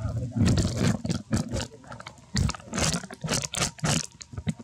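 Young macaques screeching and squealing in a rapid series of short, harsh cries during a scuffle.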